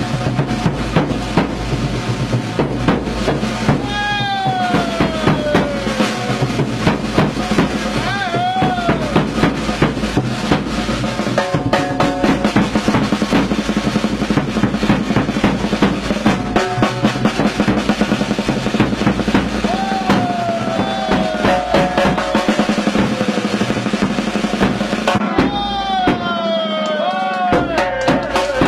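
Background music with a fast, busy drum beat, over which a lead melody line slides downward in pitch a few times.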